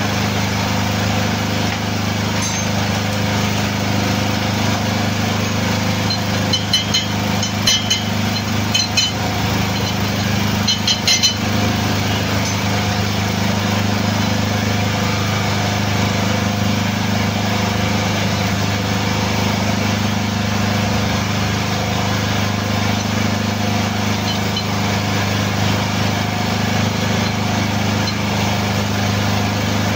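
Hydraulic tyre press power unit running with a steady low hum. About seven to eleven seconds in, a short cluster of light metal clinks as the lock ring is worked onto the forklift wheel rim.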